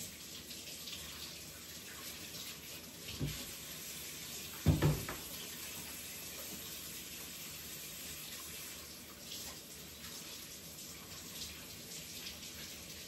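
Kitchen sink faucet running steadily as hands are washed under it. Two dull knocks come about three and five seconds in, the second the louder.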